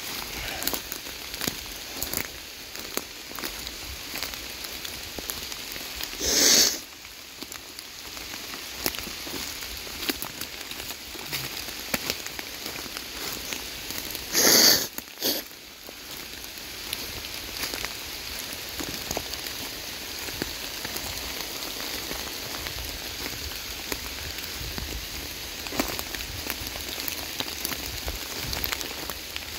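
Heavy rain falling steadily, with many sharp ticks of drops striking right on the phone. Twice, about six and fifteen seconds in, there is a brief, much louder rush of noise.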